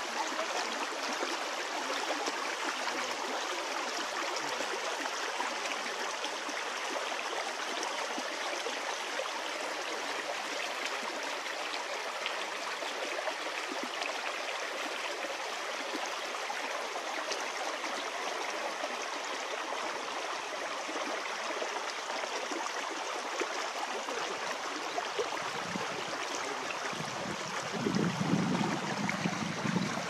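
Small, shallow creek burbling steadily over stones. Near the end a louder low rumble rises over it for a few seconds.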